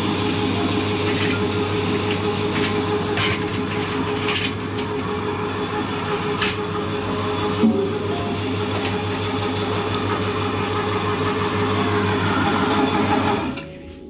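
A machine's motor running with a steady, even hum, with a few sharp knocks and rustles over it. The hum cuts off suddenly shortly before the end.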